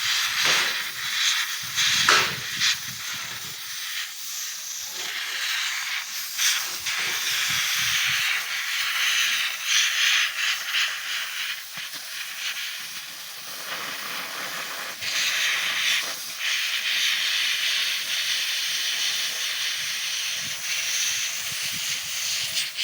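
Gas cutting torch hissing steadily, with scattered crackles and pops.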